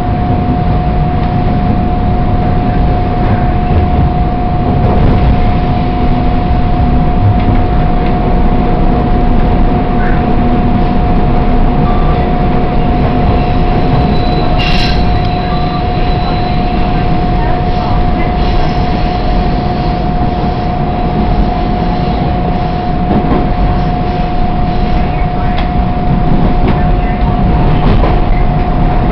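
Toronto subway train running on the rails, a continuous rumble with a steady whining tone held over it. A brief high squeal cuts in about halfway through.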